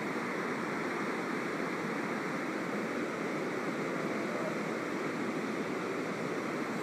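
Water pouring over a dam spillway: a steady, even rushing.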